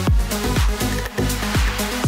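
Electronic dance music with a steady kick drum, about two beats a second, over sustained synth tones.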